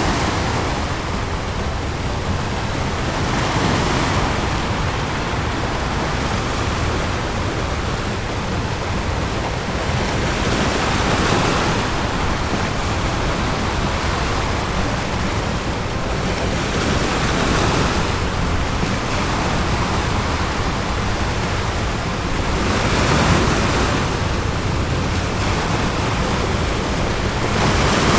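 Ocean waves breaking and washing on a beach, a steady surf hiss that swells every few seconds as each wave comes in.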